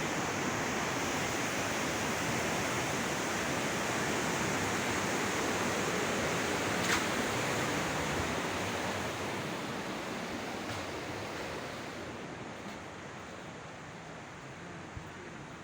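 Steady rush of a fast-flowing river, an even noise with no tones in it, fading gradually through the second half. A single sharp click about seven seconds in.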